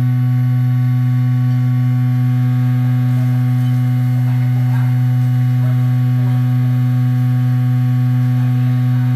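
Vibratory stress relief exciter running at a steady speed, clamped to a welded metal workpiece: a loud, steady hum with a weaker higher overtone.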